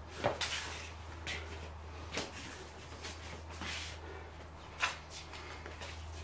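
Sparring footwork and contact: sneakers shuffling and scuffing on a concrete floor, clothing brushing, and a few sharp slaps or knocks of hands and arms meeting, the loudest near the start and about five seconds in. A steady low hum runs underneath.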